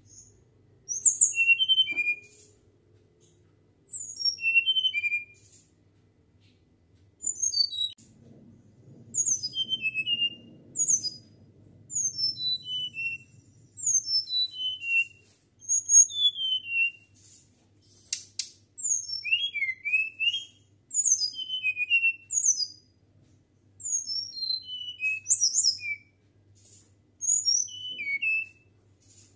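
Caged flycatcher (sikatan) singing in a flute-like voice. It repeats short phrases of high, clear whistled notes, each a quick run of mostly falling notes, every second or two.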